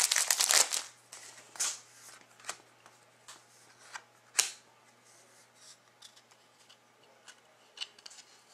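A trading-card pack wrapper crinkling for under a second, then glossy hockey cards slid and flicked one by one through the hands, a scatter of soft clicks and snaps with the sharpest about halfway through.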